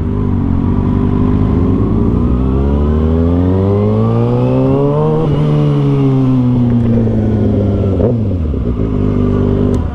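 A 600cc inline-four sport motorcycle engine pulling hard, its pitch climbing smoothly for about five seconds, then dropping back over the next three as the throttle comes off.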